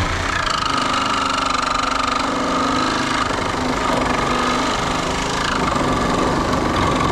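Power saw running steadily as it cuts through nails holding a wooden board, catching some of the wood, then shutting off abruptly.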